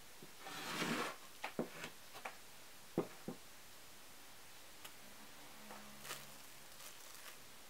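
Quiet kitchen handling sounds while pressed mackerel sushi is assembled: a short rustle about half a second in, then a few light taps and clicks, and later some fainter ticks.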